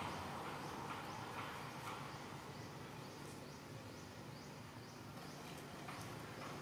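Faint outdoor background noise with a short high chirp repeating about twice a second.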